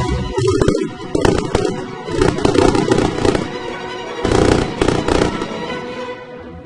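Firecrackers going off in about four crackling bursts, each a rapid run of sharp cracks, over background music.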